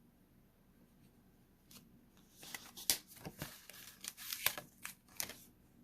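Pokémon card pack and cards handled in the hands: a quick run of crinkling, rustling crackles that starts about two and a half seconds in.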